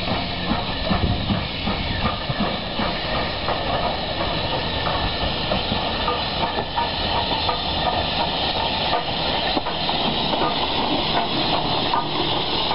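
BR Standard Class 4MT 2-6-4T steam tank locomotive moving slowly, with a continuous hiss of escaping steam at its cylinders and a few faint clanks.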